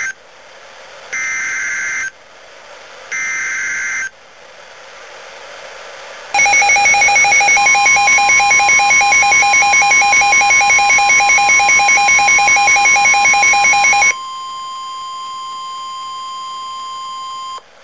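NOAA Weather Radio alert signals: three one-second bursts of warbling digital SAME data tones, then the steady 1050 Hz warning alert tone. For about eight seconds a louder rapidly pulsing alarm sounds over the steady tone, which then continues alone and cuts off near the end.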